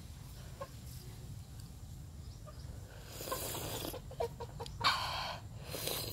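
Domestic fowl calling a few times in the second half, in short noisy bursts, over a steady low rumble.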